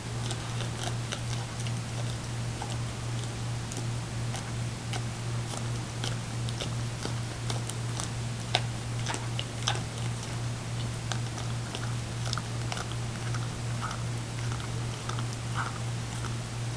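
Greyhound licking the inside of a dog ice-cream cup, giving irregular wet tongue clicks and smacks. A steady low hum runs underneath.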